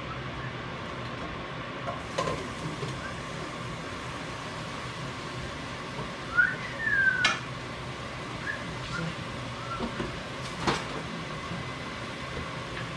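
Stovetop cooking: a steady hiss and faint hum, with a few sharp clinks of a utensil against a pan. A short high squeal, rising then falling, comes about six seconds in.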